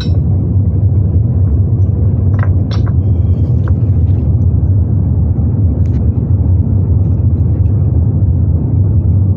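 Power pack engine of oil-spill boom equipment running steadily under load, a loud, even low rumble.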